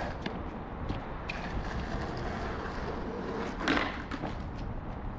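Skateboard on concrete: a few light clacks in the first second and a half, then a louder short clatter about three and a half seconds in, over a steady low outdoor rumble.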